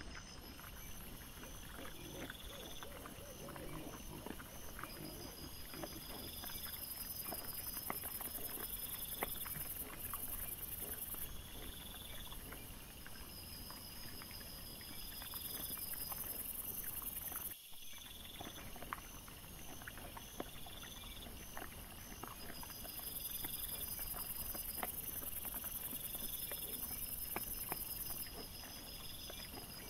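Many small clicks and rustles of wild boar piglets rooting and feeding on the ground, over steady hiss with faint, evenly pulsing high tones. A brief break in the sound about two-thirds of the way in.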